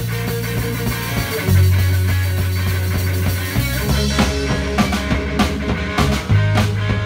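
Live rock band playing: electric guitars hold long, low notes, and the drum kit comes in about four seconds in with snare and cymbal hits.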